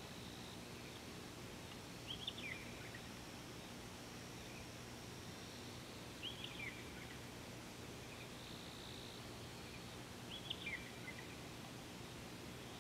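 A bird repeats a short call of a few quick notes falling in pitch, three times, about every four seconds, over a steady low hum.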